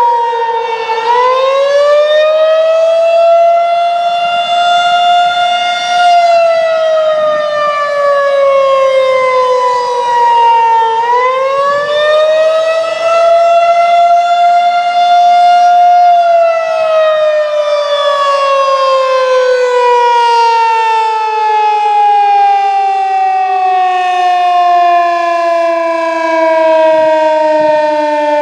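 Federal Signal 2001-130 electromechanical outdoor warning siren sounding the Attack signal. Its wail rises and falls in pitch twice, holding briefly at the top each time, then slides slowly down and is still falling at the end.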